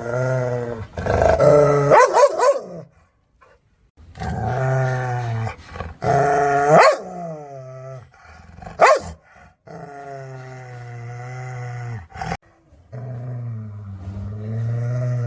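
A dog growling aggressively in long, low growls, about five of them with short pauses between. A few of the growls break into a sharp, loud bark.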